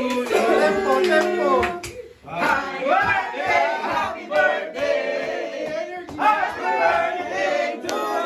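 Background pop song: a passage of layered sung vocals with the bass dropped out, and a short pause about two seconds in.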